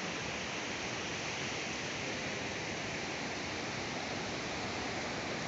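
Steady rushing hiss of surf breaking along a flat sandy beach, even and unbroken throughout.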